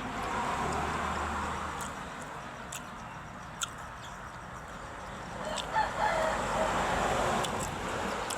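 A chicken calling over a steady background noise, loudest about six seconds in.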